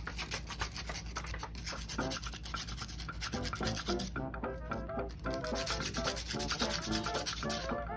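Rapid back-and-forth rubbing of a small sanding pad on a plastic model part. Background music with a melody comes in under it from about three seconds in.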